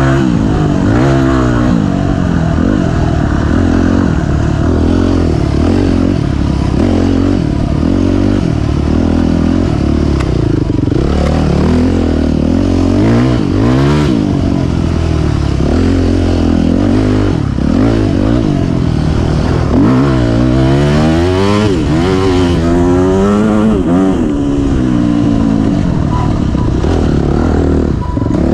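Off-road dirt bike engine being ridden hard on a trail, the revs climbing and dropping over and over with the throttle, with a run of quick rev swings about twenty seconds in.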